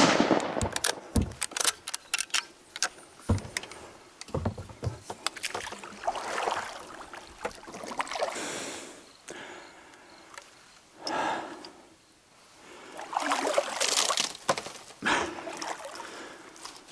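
A hunting rifle's shot echoing away across the river at the very start, followed by a series of clicks and knocks. Then a kayak is paddled: paddle strokes splash and slosh in the water, with knocks against the hull, as the boat comes in to the bank near the end.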